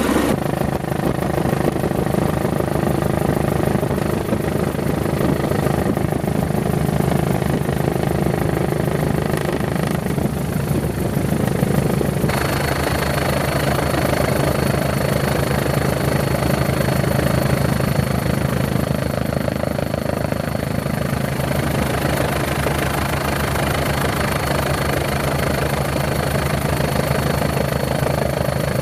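Helicopter engine and rotor noise heard on board: a loud, steady drone. After an abrupt change about twelve seconds in, a thin high whine sits over it.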